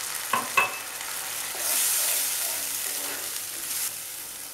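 Matar paneer gravy of peas in tomato-onion masala, just thinned with water, sizzling in a non-stick kadai as it is stirred with a wooden spoon. Two sharp knocks come near the start, then the sizzling hiss grows louder for about two seconds and eases off near the end.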